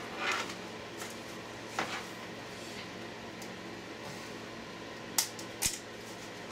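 A few light clicks and short scrapes of brittle cast foam being handled and worked off a plastic mould, with the sharpest pair of clicks a little after five seconds in. The foam cast is brittle because its mix ratio was wrong.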